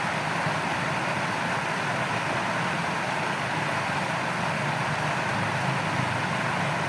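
Steady rushing of flowing water in a shallow stream, an even noise with no changes.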